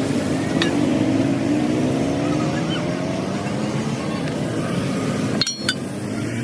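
Truck engine running under way, its pitch rising as it picks up speed, with a short sharp break about five and a half seconds in.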